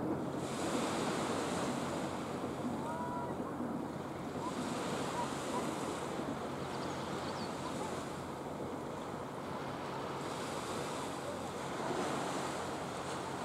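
Small waves breaking and washing up onto a sandy beach, the surf swelling roughly every five to six seconds over a steady hiss.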